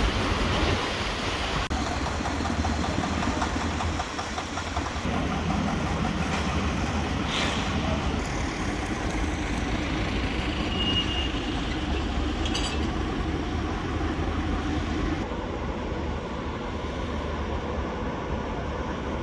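Steady mechanical rumble of shipyard machinery with no speech, broken by two short sharp knocks a few seconds apart.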